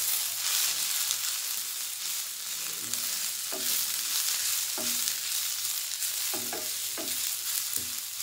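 Drumstick leaves and chopped onion sizzling in oil in a non-stick kadai. A steady sizzle, with a spatula scraping and knocking against the pan several times as the greens are stirred.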